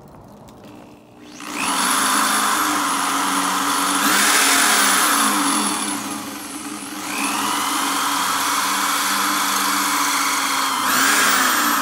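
Corded DeWalt electric drill starting up about a second in and running steadily as its bit cuts a hole through the go-kit panel; the motor eases off and speeds up again a couple of times.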